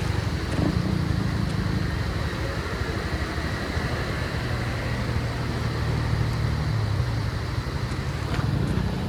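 Motorcycle engine running steadily with a low rumble, its pitch shifting slightly partway through.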